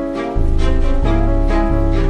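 Instrumental music with no vocals: plucked notes, about two a second, over deep bass notes.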